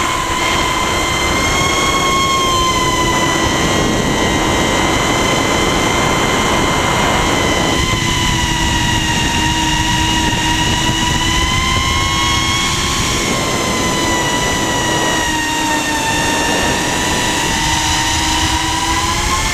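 Brushless motors and propellers of a 150mm FPV quadcopter whining in flight, heard through the GoPro mounted on the quad itself. The whine's pitch wavers up and down slightly with throttle, over a rushing noise that drops away and returns a few times.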